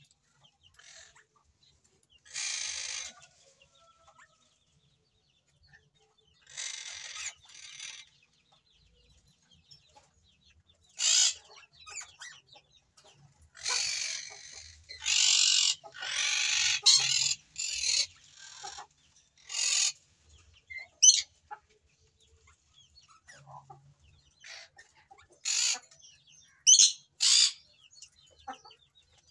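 Hand-fed nestling bird giving repeated raspy food-begging calls in short bursts while it takes formula from a feeding syringe. The calls come thickest around the middle.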